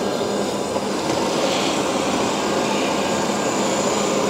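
Shark IQ Self-Empty XL robot vacuum running steadily on carpet in normal cleaning mode: an even, continuous motor whir with a faint steady hum.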